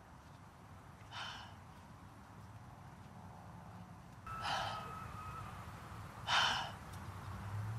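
A person sighing, three short breathy exhalations about a second, four and a half and six and a half seconds in, the later two louder, over a steady low outdoor rumble.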